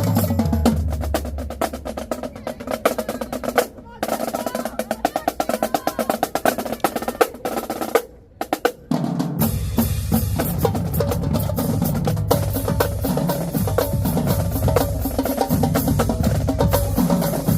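Marching drumline playing a cadence: rapid snare rolls and tenor patterns over bass drums. The line stops dead twice, near four seconds and just after eight, and the bass drums come back in heavily about nine and a half seconds in.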